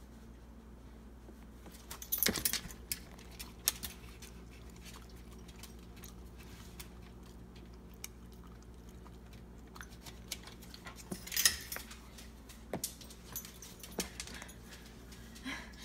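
Dog's metal collar tags jingling in short bursts, about two seconds in and again near eleven seconds, with scattered small clicks and taps as the dog takes and eats food.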